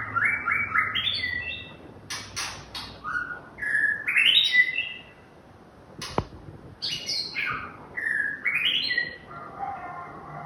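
White-rumped shama singing: phrases of short whistled notes stepping up in pitch, mixed with harsh rattling notes and a sharp click about six seconds in.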